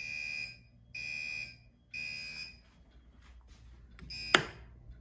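Gentex Commander 3 fire alarm horn sounding in the Code 3 (temporal-three) pattern: three short buzzy blasts about a second apart, then a pause. A fourth blast cuts off with a sharp click about four seconds in, as the alarm is silenced.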